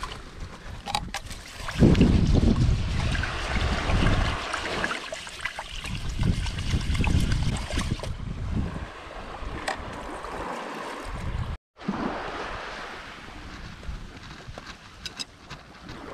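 Water swishing and splashing as rice is washed by hand in a mess tin dipped in a shallow stream of spring water, with wind rumbling on the microphone. The sound drops out for a moment about two-thirds of the way through, then a quieter outdoor hiss goes on.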